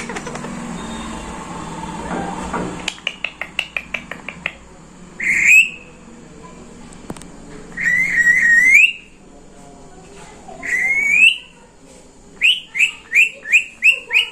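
Green ringneck parakeet calling: a quick run of short chirps about three seconds in, then three rising whistled calls a few seconds apart, and near the end a fast series of short shrill calls, about four a second.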